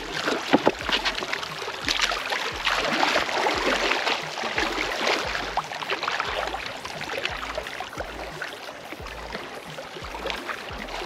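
Small waves lapping and splashing against the rocks of a lakeshore, a steady watery wash with many small splashes.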